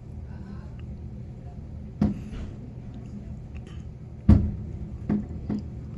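Fireworks going off: one boom about two seconds in, then three more close together in the last two seconds, the first of these the loudest, each with a short rumbling tail.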